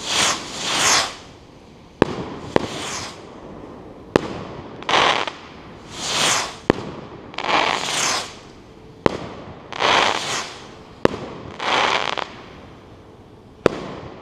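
1.3G firework rockets fired one after another, about every two seconds: each goes up with a rushing whoosh and bursts overhead with a sharp bang.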